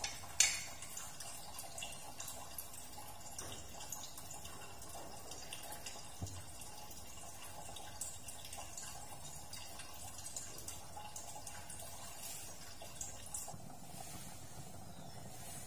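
Pork and quail eggs in braising liquid simmering in a lidded pot: a faint steady bubbling with scattered small pops and ticks. A single sharp click about half a second in.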